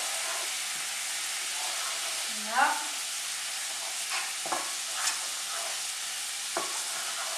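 Garlic, curry and paprika sizzling steadily in a little oil and water in a frying pan while being stirred with a wooden spatula, with a few light knocks about halfway through and near the end.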